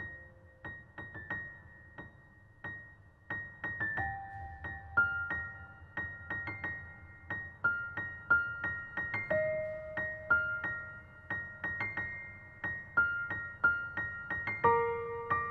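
Background music: a slow, sparse melody of single notes played on a piano-like keyboard, each note struck and left to ring and fade.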